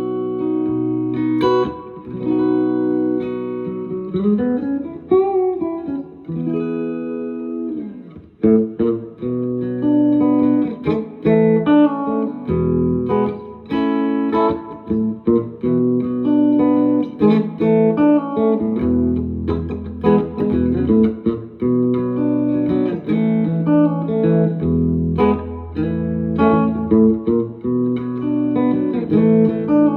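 Home-built electric guitar with split-capable humbuckers, played on its middle pickup setting: a run of chords and single-note lines, with a string bend rising and falling about four seconds in.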